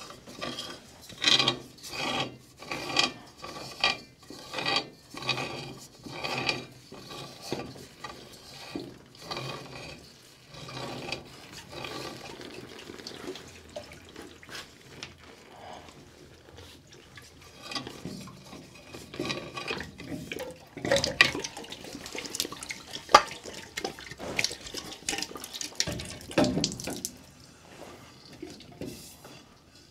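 A new Amtrol expansion tank being screwed by hand onto the boiler's fitting: a series of knocks and rubs as the steel tank is turned and gripped, with hot system water dripping and splashing from the fitting. The knocking is densest over the first ten seconds and picks up again in the last third.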